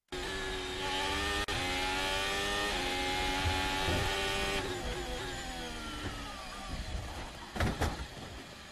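Ferrari SF21 Formula 1 car's turbocharged V6 at high revs, climbing in pitch through quick upshifts, then falling away as the car brakes and shifts down. About seven and a half seconds in come two heavy bangs as the car hits the barrier.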